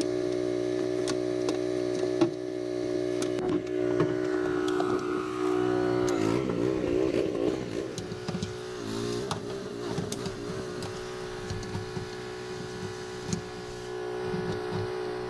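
Pressure washer running steadily with its water jet spraying, the pitch wavering for a few seconds about midway.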